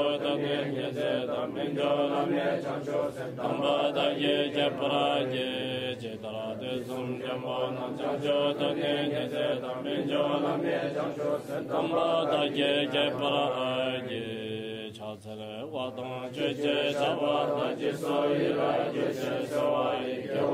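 Tibetan Buddhist prayer chanting by a voice, recited steadily with a short pause about fifteen seconds in.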